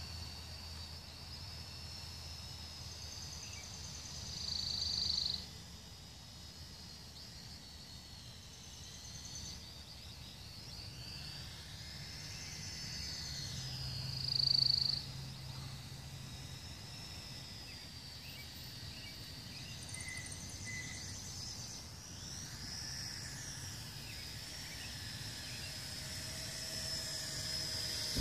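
Mould King Super S toy quadcopter's motors whining in flight, the high whine rising and falling in pitch as it throttles and manoeuvres, and swelling louder twice, about 4 seconds in and about 14 seconds in.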